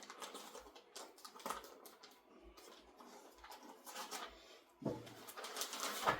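Rustling and light clicking of a plastic bag and small parts being handled and unpacked by hand, with a louder burst of rustling near the end.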